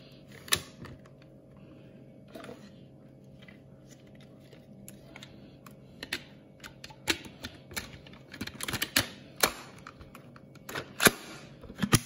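Hard plastic clicks, knocks and clatter as the parts of a Dyson V7 cordless vacuum are handled and fitted back together by hand. The clicks are scattered, with a busier run about seven to nine seconds in and a sharp click about eleven seconds in.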